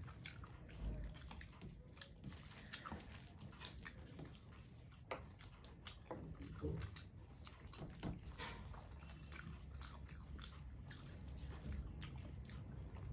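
Faint chewing and mouth smacks of people eating rice and small fish with their hands: scattered soft clicks at irregular intervals.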